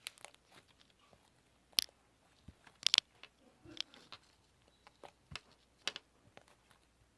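Irregular sharp clicks and taps, about a dozen. The loudest come just under two seconds in and as a quick cluster about three seconds in.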